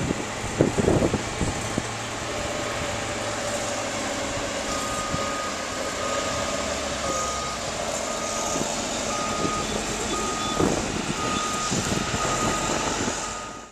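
Heavy earthmoving machine (front loader or bulldozer) running on the sand, its reversing alarm beeping steadily about once a second from about five seconds in.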